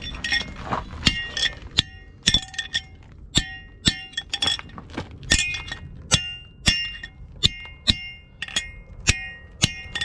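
Hammer blows on a long drift driving a bearing race out of a Cat 735 wheel hub, about two sharp metal strikes a second, each ringing briefly through the cast hub.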